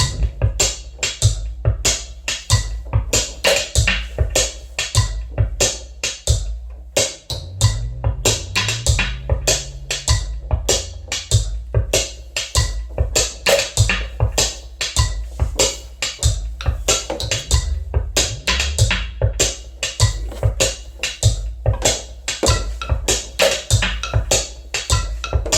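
A mechanical acoustic beat sequencer playing a quick, steady beat of sharp clicks and knocks over a low bass line.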